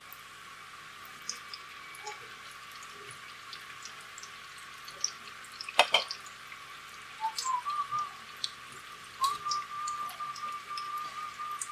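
Ham cutlets deep-frying in a pot of oil: a steady sizzle peppered with small pops, with one sharp clink near the middle. From about seven seconds in, a thin high whistling tone joins, holding close to one pitch.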